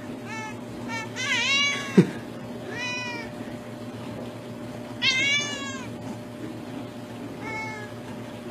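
A cat meowing repeatedly, about five short arching meows, one of them wavering, the loudest about five seconds in. A short sharp click about two seconds in.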